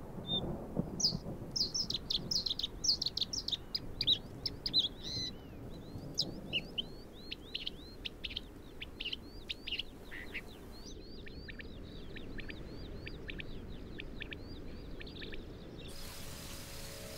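Birds singing: a busy run of quick chirps and high, downward-sliding whistles that thins out after about five seconds, over a faint low rumble.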